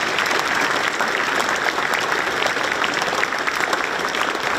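A large crowd applauding, a dense, steady patter of many hands clapping.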